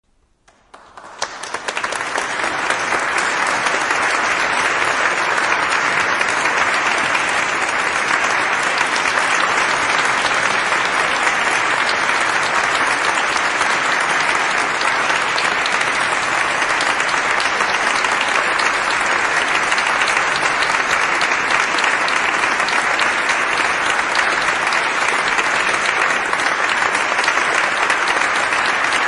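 Large audience applauding in a reverberant hall, the clapping swelling in over the first couple of seconds and then holding steady and dense.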